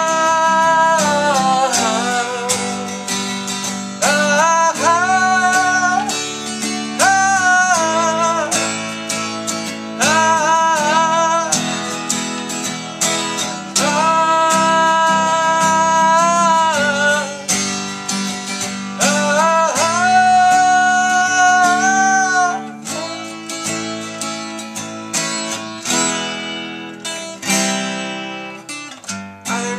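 A man singing long wordless 'aah' notes that slide between pitches over a strummed acoustic guitar; from about 22 seconds in the voice stops and the guitar strums on alone.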